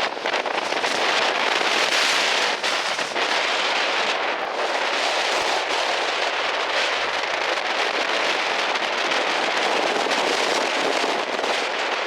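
Strong wind rushing and buffeting the microphone, with crackling knocks from the gusts hitting it.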